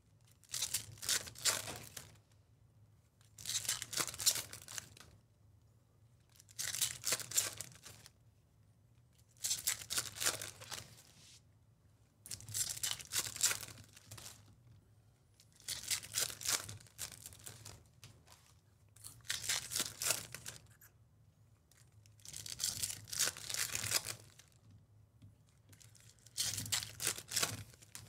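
Topps Chrome baseball card foil packs crinkling and tearing open, one pack after another, in short bursts about every three seconds.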